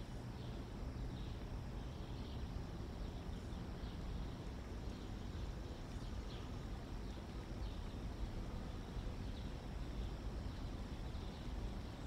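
Outdoor ambience from a nest-cam microphone: a steady low rumble with faint, short high chirps repeating every second or so.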